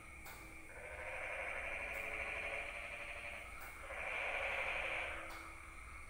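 A chorus of frogs calling together, a dense pulsing din that swells and dies away in waves, loudest a little past the middle and dipping near the end.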